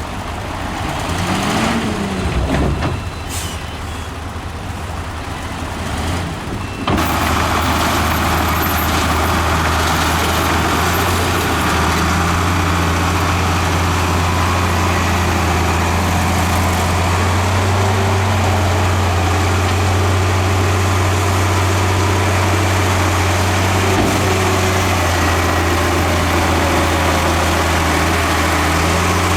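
Heavy diesel earthmoving machinery running, its engine at a varying pitch with a brief rise and fall in the first few seconds. About seven seconds in it turns abruptly into a louder, steady deep engine drone.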